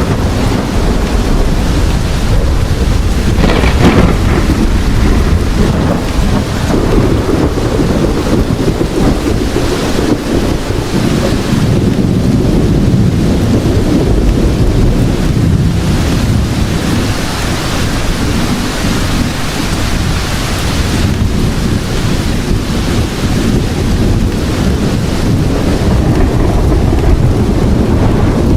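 A steady heavy rainstorm with deep thunder rumbling continuously underneath, and a sharper surge of thunder about four seconds in.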